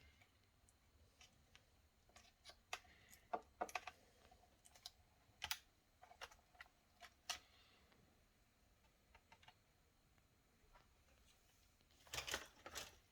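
Scattered light clicks and taps of plastic laptop parts being handled during disassembly, with a quick cluster of clicks near the end.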